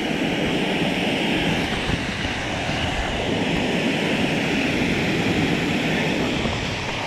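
Steady rush of a small waterfall pouring into a shallow stream pool.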